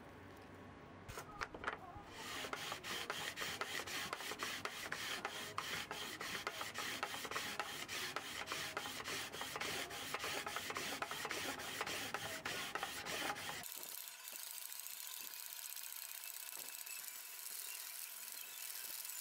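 A sanding block rubbed in quick back-and-forth strokes along a bass guitar's fingerboard, sanding the board level after the frets have been pulled. After a few light clicks it becomes a dense, gritty scrubbing, and about two-thirds of the way through it changes to a thinner, hissier scrape.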